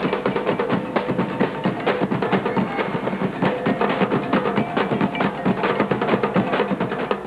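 Street-dance percussion music: drums and other percussion beaten in a fast, dense rhythm that keeps going without a break.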